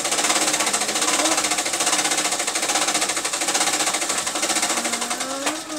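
A steady, rapid mechanical rattle, like a small motor-driven machine running, that stops near the end.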